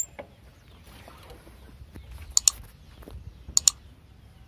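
Two pairs of quick, sharp mouse-click sound effects about a second apart, the clicks of a subscribe-button and notification-bell animation, over a low background rumble.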